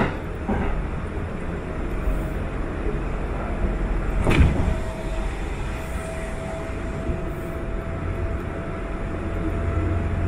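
Interior running noise of a Sanyo 5000 series electric train at speed: a steady rumble of wheels on rail with a faint steady whine. About four seconds in, a train passing close on the adjacent track hits with a sudden loud whoosh, the loudest moment, and its noise carries on for a few seconds.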